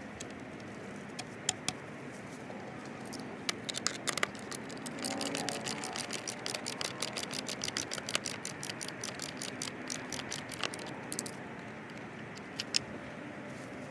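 Skate tool working the nuts on a skateboard truck's mounting hardware. A few separate metal clicks come first, then a quick, even run of clicking in the middle that stops near the end, over steady background noise.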